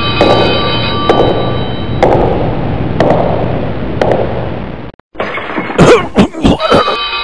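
Heavy knocks about once a second over a steady low hum and sustained ringing tones; about five seconds in the sound cuts out briefly, then a quick run of sharp crashes and bangs follows.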